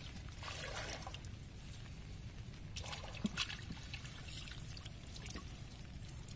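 Water trickling and splashing off a fishing net as it is hauled hand over hand out of the water into a boat, with two louder splashy pulls, about half a second in and about three seconds in, over a steady low rumble.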